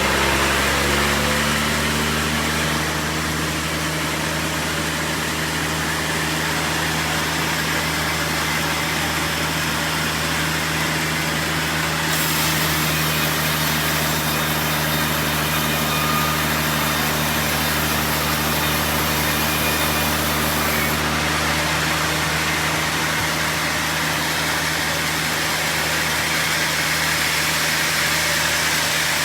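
Sawmill machinery running steadily: a constant engine hum with a dense hiss over it. A brighter, higher hiss joins about twelve seconds in and drops away about nine seconds later.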